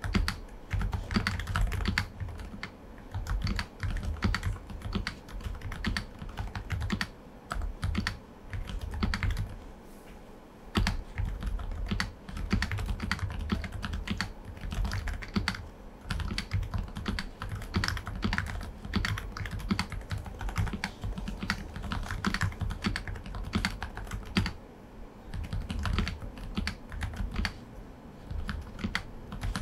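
Aula F98 Pro V2 mechanical keyboard with silent switches being typed on continuously, a dense stream of soft, low-pitched keystrokes with a brief lull about ten seconds in.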